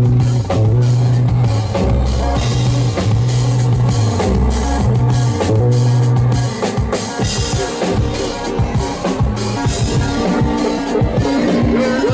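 Live drum kit and synthesizer playing an instrumental. Held synth bass notes sit under a busy drum beat, then the bass drops out about halfway, leaving the drums on their own. A higher repeating synth line comes in near the end.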